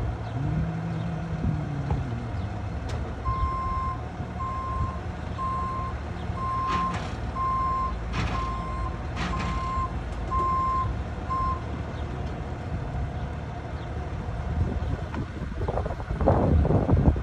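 Tow truck's reverse alarm beeping at one steady pitch, about once a second, nine times, over the low rumble of the truck's engine running. A louder rush of noise comes near the end.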